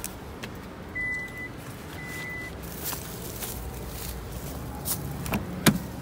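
Two short electronic beeps about a second apart, with scattered clicks and handling knocks and one sharp click near the end.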